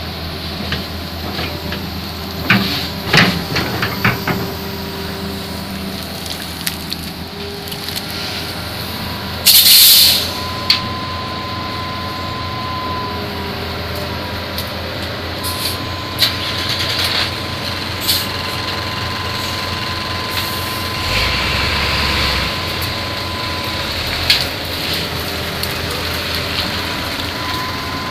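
Diesel engines of a Hitachi crawler excavator and a truck running steadily while the excavator loads onto the flatbed. There are sharp metal clanks about three seconds in, and a short, loud hiss of air about ten seconds in. A steady high whine comes and goes.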